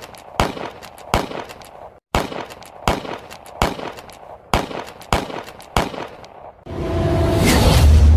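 A series of single gunshot sound effects, one roughly every three-quarters of a second, each with a short ringing tail. About seven seconds in they give way to a deep rumbling swell that builds to its loudest near the end.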